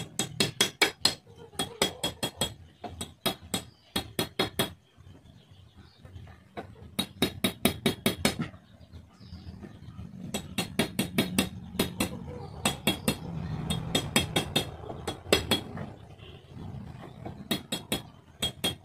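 Small hammer striking a small metal piece held on a rock: quick runs of sharp, ringing metallic taps, several a second, broken by short pauses.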